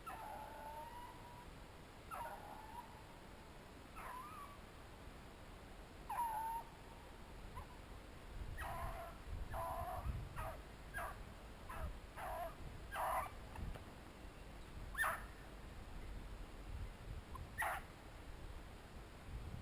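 Beagles baying on a rabbit's trail. There are faint, drawn-out howling calls every couple of seconds at first, then a quicker run of short yelps, then a few more calls: the sound of the pack running a rabbit.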